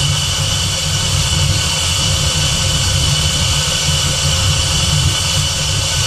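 Fox-body Mustang's swapped Terminator Cobra supercharged 4.6 L V8 idling steadily while the cooling system is burped, with a steady rushing whir over the low engine rumble.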